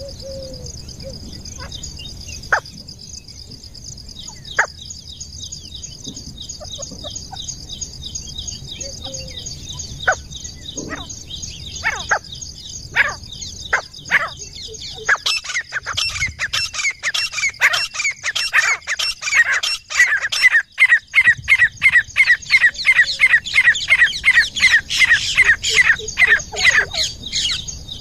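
Grey francolin calling. Scattered short notes come first, then from about halfway a loud, fast run of repeated shrill call notes, several a second, under a steady high hiss.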